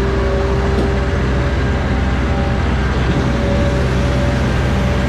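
Truck and lifting machinery running steadily: a low engine rumble with a faint steady whine over it, as a bin of iced fish is hoisted and tipped into a truck.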